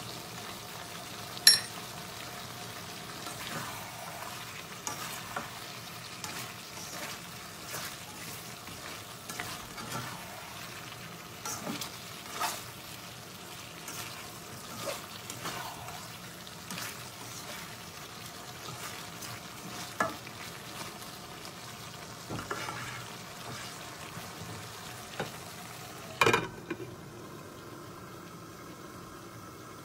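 Green tomato and dried-fish curry sizzling in a pan while a spatula stirs it, with scattered scrapes and clinks against the pan. Near the end a glass lid is set on the pan with a clank, and the sizzle becomes quieter.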